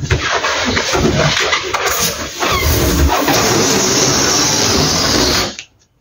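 Electric balloon pump running, blowing air into a latex balloon held in the hands, with rubbing and handling of the balloon in the first few seconds; the sound steadies from about three seconds in and cuts off suddenly near the end.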